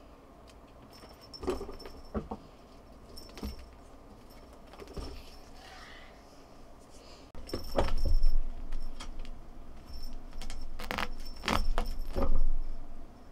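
Small bell jingling in short shakes, mixed with thumps and scuffs of a cat jumping and moving about on a fabric office chair. The loudest thumps come about eight seconds in and again near the end.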